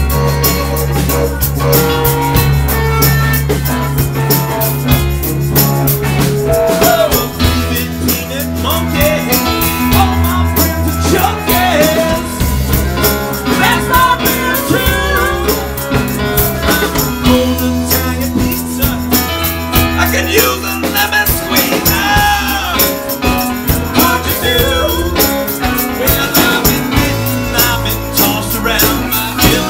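A live rock band playing: drum kit with steady cymbal strokes, electric bass and electric guitar, with a voice singing over it in places.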